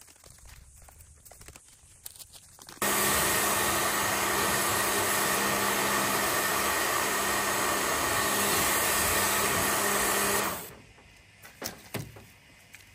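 Small Kärcher K Mini electric pressure washer running, its water jet spraying the aluminium hull of the dinghy. It switches on abruptly about three seconds in with a steady motor hum and spray hiss, then runs down near the end, followed by a couple of light knocks.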